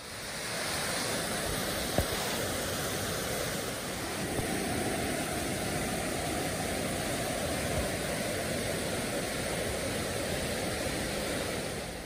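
Soča River whitewater rushing through its narrow limestone gorge, a steady rush that swells in over the first second. A single short knock comes about two seconds in.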